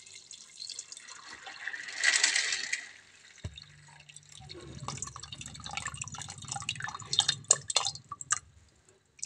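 Water poured into a pressure-cooker pot of raw beans and a whole carrot, splashing and trickling, loudest about two seconds in. From about a third of the way in it gives way to drips and small splashes over a low steady hum.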